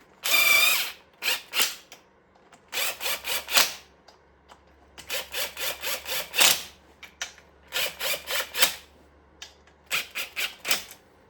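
Hand ratchet worked in quick back-and-forth strokes, running fasteners in on a motorcycle engine's cylinder head. It comes as six short bursts of rasping clicks with pauses between them.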